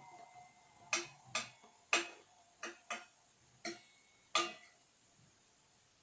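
A spoon tapping and clinking against a bowl about seven times at uneven intervals, each tap ringing briefly, as spoonfuls of powder detergent are added.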